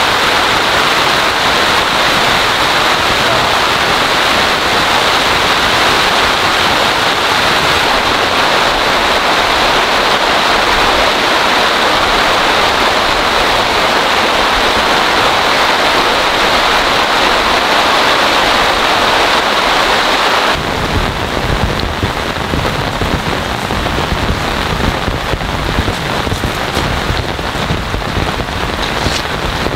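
Heavy rain pouring down in a loud, steady hiss. About two-thirds of the way in the sound changes abruptly to a duller rain with heavier, uneven low thuds.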